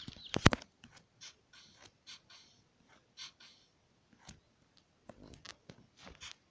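Light taps and clicks from a tablet being handled and tapped, with a sharper double knock about half a second in and faint scattered ticks after it.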